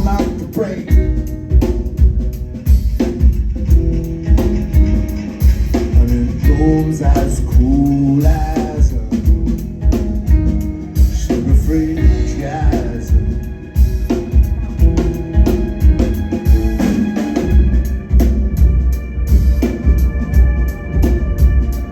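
A live band playing an instrumental passage with no vocals: a drum kit keeps a steady beat under deep bass and sustained organ-like keyboard chords, with a few sliding notes midway.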